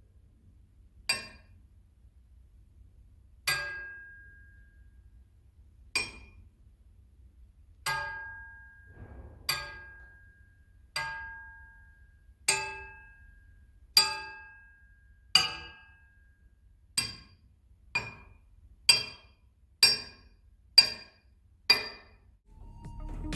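Steel engine crankshafts struck one after another, about fifteen sharp strikes that each ring briefly, some with a longer clear tone than others. The strikes come every one and a half to two and a half seconds at first and about once a second toward the end. This is a ring test comparing how the crankshafts sound.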